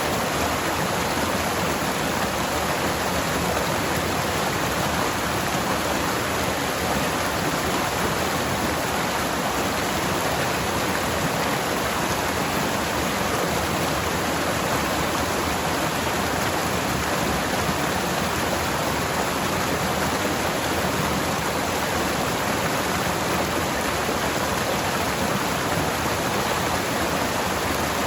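Forest stream flowing over rocks: a steady, unbroken rush of water.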